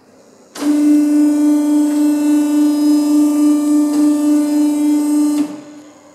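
A loud, steady electric buzzer tone sounds for about five seconds, starting and stopping sharply at one fixed pitch.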